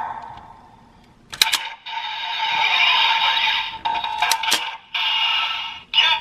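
Electronic sound effects from the DX X Changer toy's small built-in speaker, with the silver train loaded. Sharp plastic clicks come about a second and a half in and again about four and a half seconds in, each followed by a fresh burst of effects.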